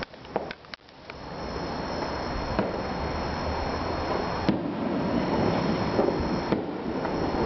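Firework shells bursting overhead as a few sharp cracks, heard over a steady rumbling noise that builds from about a second in.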